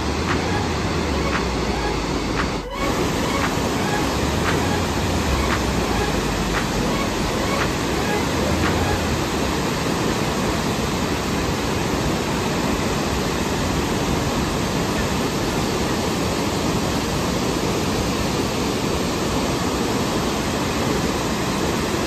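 Burney Falls, a 129 ft waterfall of many streams spilling down a cliff into a pool, rushing steadily as an even hiss of falling water. There is a brief dip about three seconds in.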